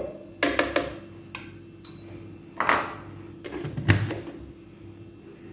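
Spoon scraping and tapping a bowl as flour is tipped into a glass blender jug, then the blender's plastic lid knocked and clicked into place on the jug. It comes as a series of separate light knocks and clicks, with a sharper one about four seconds in.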